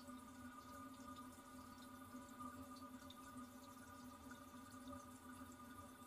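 Faint, steady trickle and hum of a toilet cistern refilling, with small drips scattered through it.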